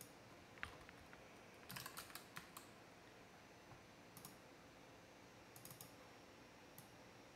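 Faint computer keyboard typing and clicks: a quick run of keystrokes about two seconds in, then a few scattered single clicks.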